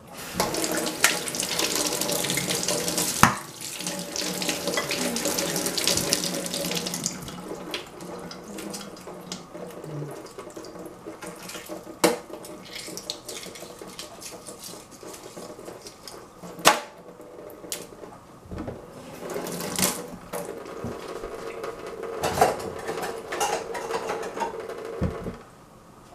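Kitchen tap running into a stainless steel sink, heaviest in the first few seconds and again near the end, with a few sharp knocks as eggs are cracked and shelled.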